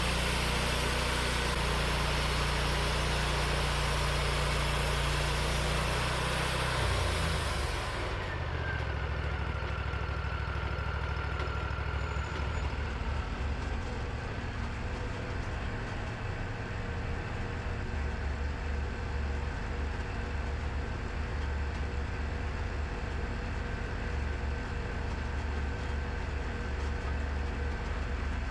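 Portable sawmill's engine running while the blade cuts a white pine log. About eight seconds in, the cutting hiss stops abruptly and the engine runs on steadily by itself.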